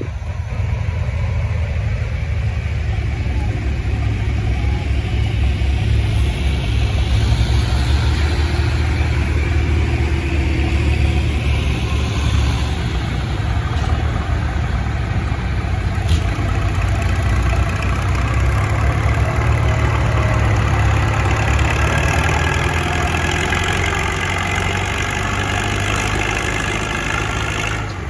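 Antique farm tractor's engine running hard under load as it drags a weight-transfer sled down a tractor-pulling track.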